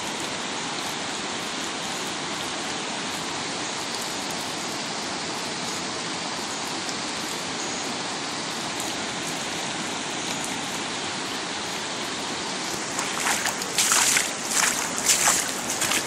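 Floodwater rushing in a steady, even hiss as it flows over the grass. In the last three seconds there is a run of louder, irregular scuffs and knocks.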